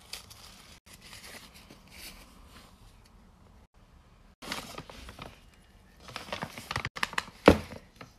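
Tissue paper and paper packaging rustling and crinkling in hands as tape is peeled and the wrapping opened, louder in uneven bursts in the second half, with one sharp knock near the end.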